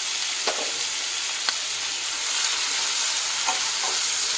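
Chopped tomatoes, onion and green chillies sizzling in hot oil in a pan while being stirred with a wooden spatula, sautéing until soft. A steady hiss, with a couple of light clicks about half a second and a second and a half in.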